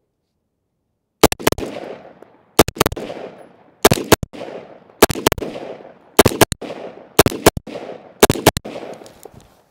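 AR-15-style rifle firing seven controlled pairs, the two shots of each pair about a third of a second apart and the pairs roughly a second apart, each shot followed by a short echo.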